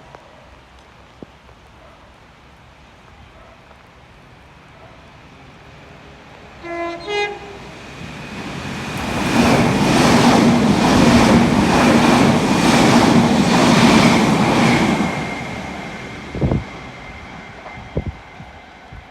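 A train sounds a short horn blast, then runs through the station, swelling and fading. A steady hum runs under a regular clatter of wheels over rail joints about twice a second. A couple of short knocks follow near the end.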